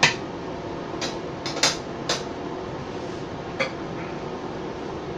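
A cooking utensil clinking against a square pan and a plate: about six sharp, separate clicks, most in the first couple of seconds, over a steady low hum.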